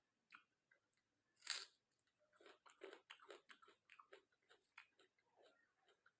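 Close-up eating sounds: one loud bite into chicken about one and a half seconds in, then steady chewing with quick wet clicks.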